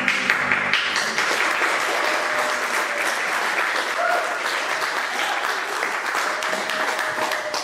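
Audience applauding: dense clapping that starts suddenly as the music cuts off.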